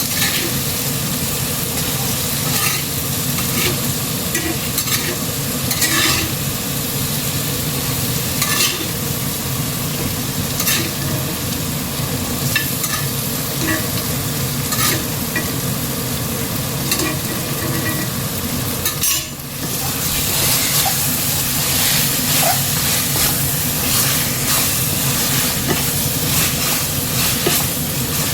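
Chicken frying in a pan of spiced tomato-onion masala and curd, sizzling steadily while a spoon clicks and scrapes against the pan, with a brief drop a little past two-thirds of the way through.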